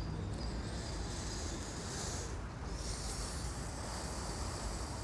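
Quiet outdoor park ambience between spoken lines: a steady low rumble with a soft high hiss that swells and fades, and a faint short high chirp at the very start.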